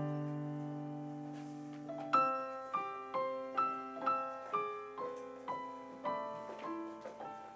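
Slow, gentle solo piano music: a chord held for about two seconds, then a melody of single notes struck about twice a second, each fading away.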